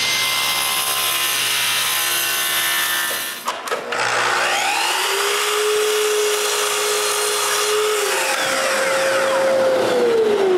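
A table saw cuts small blocks of dense hardwood for the first few seconds. Then a miter saw motor spins up, runs and cuts with a steady whine, and winds down near the end.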